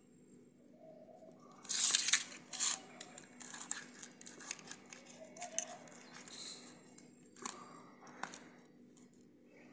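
Kitchen knife cutting khoya barfi and scraping against a steel plate, with pieces being lifted and shifted: a run of short scrapes and rustles, loudest about two seconds in, and a brief high squeak a little past the middle.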